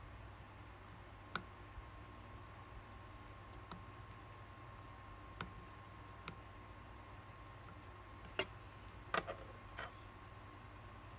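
Light, sharp clicks of steel tweezers and small parts touching the metal plate of an automatic watch movement, a few scattered strikes with a quick cluster of clicks about eight to ten seconds in.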